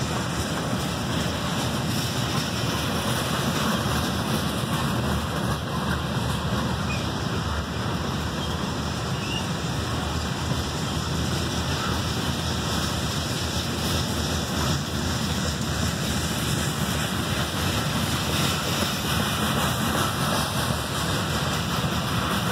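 Freight train cars, covered hoppers and tank cars, rolling past on steel wheels and rail: a steady, even rumble and rush that does not let up.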